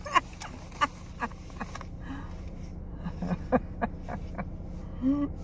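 Steady low hum inside a parked car's cabin, with scattered small clicks and rustles of someone shifting about, and a brief voice sound near the end.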